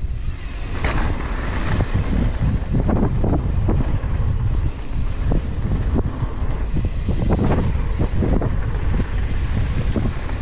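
Wind buffeting a bike-mounted camera's microphone while a mountain bike rides fast down a dirt trail, with tyres rolling over packed dirt and frequent short rattles and knocks from the bike over bumps.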